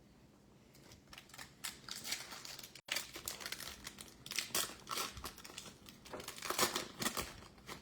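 Crinkling of a trading-card pack's wrapper as the cards are handled, in irregular short crackles that grow busier in the second half.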